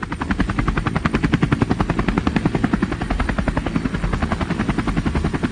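Small engine of a miniature DIY tractor running with a fast, even chug.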